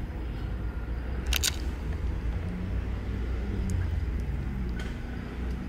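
A steady low rumble with a sharp double click about a second and a half in, and a few faint ticks after it.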